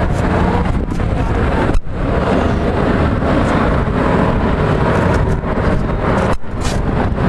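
Steady, loud outdoor airport rumble: jet engine noise from the Boeing 787 rolling on the runway, mixed with wind on the microphone. The sound drops out briefly twice, about two seconds in and again near the end.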